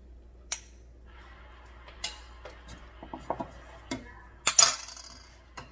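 A spoon clinking and scraping against a ceramic baking dish and a cooking pot while sticky rice is scooped: a scatter of light clinks, then a louder clank with a brief ring about four and a half seconds in.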